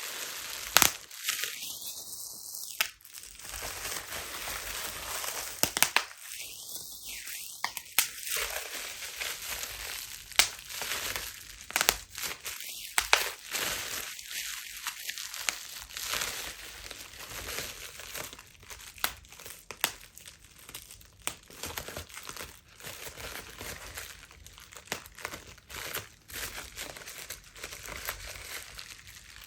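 Plastic bubble wrap crinkling as it is handled and squeezed, with sharp bubble pops scattered irregularly throughout.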